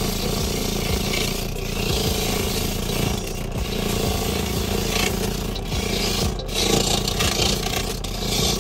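Motorized coconut grater running steadily, its spinning toothed disc scraping the meat out of a half coconut held against it.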